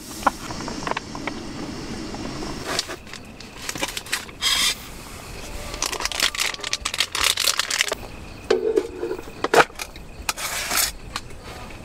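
Camp cookware and food being handled: scattered small clicks, knocks and scrapes, with two short rustling bursts, about four seconds in and again near the end.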